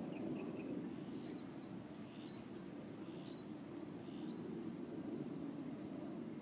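Outdoor ambience: a bird chirping in short calls about once a second over a low, steady background noise.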